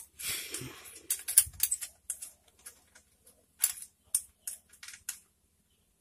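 Small metallic clicks and clinks of a bolt on a motorcycle exhaust cover being undone with a small L-shaped hex key. A short scrape at the start, then a quick run of ticks that thins out to a few scattered clicks.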